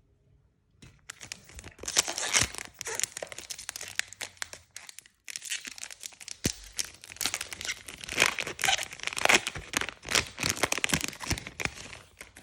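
Foil booster-pack wrapper being torn open and crinkled by hand, a crackling run of tearing and crumpling with sharp clicks, pausing briefly midway.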